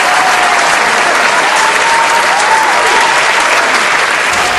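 A large crowd applauding: dense, steady clapping from many hands.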